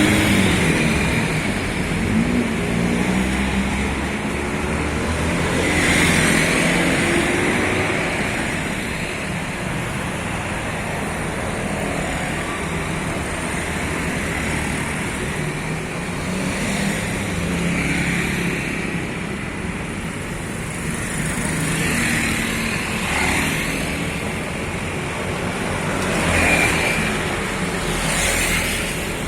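Road traffic passing on a main road: engine and tyre noise that swells several times as vehicles, buses among them, go by one after another.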